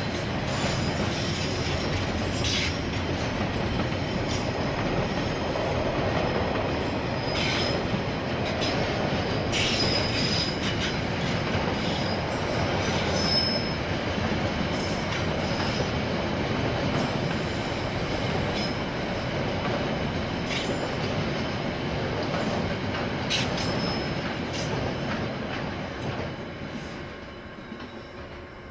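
KiwiRail freight train's wagons rolling past, a steady rumble of wheels on rail with several sharp clanks and faint wheel squeal. The sound fades away over the last couple of seconds as the train passes.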